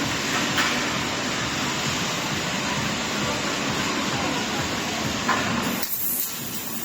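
Steady machine noise of a laser cutting machine at work, an even rushing sound with no clear rhythm, which changes abruptly near the end.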